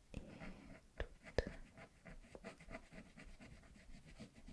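Colouring strokes scratching across the paper of a colouring book, short and irregular, with a couple of sharper clicks about a second in.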